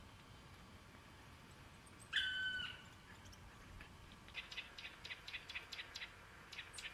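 Quiet winter forest with one short, level-pitched animal call about two seconds in. From about four seconds in, a run of soft, crisp crunches, about three a second, from Siberian roe deer moving and feeding in snow.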